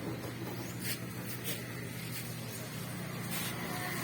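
Small engine running steadily at a low, even pitch, with a few sharp clicks over it.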